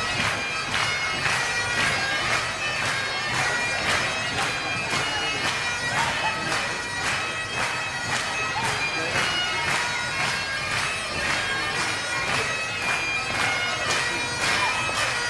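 Bagpipes playing a tune for the Highland Fling, with held drone and chanter notes and a regular beat of about three strokes a second.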